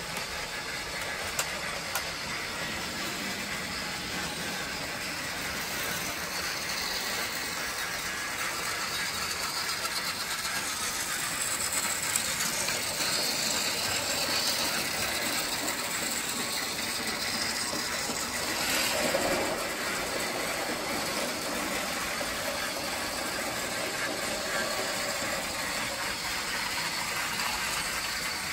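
Battery-powered TrackMaster toy train's motor and gearbox whirring steadily as it pulls its coaches along plastic track, with a light ratcheting rattle; it gets briefly louder about two-thirds of the way through.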